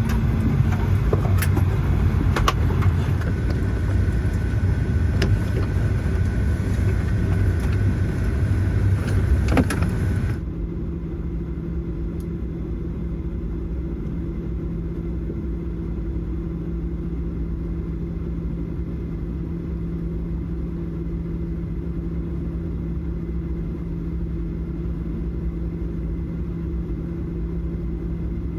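Jet airliner cabin noise aboard a Boeing 737-800: a loud rumble full of rattles and clicks for about ten seconds, then a sudden change to a quieter, steady hum with two low tones.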